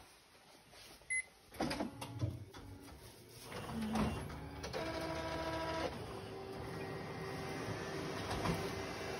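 Ricoh office copier-printer running a print job. It starts with clicks and clunks, then from about five seconds in comes a whirring motor tone, and the machine settles into a steady mechanical running noise.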